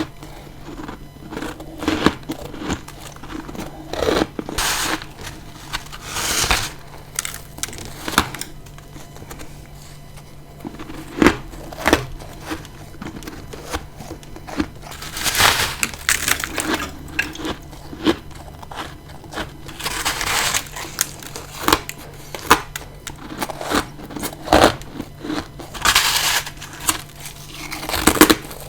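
A person biting and chewing ice close to the microphone: irregular crunches and sharp cracks, with four longer, louder crunching bites spread through, over a faint steady low hum.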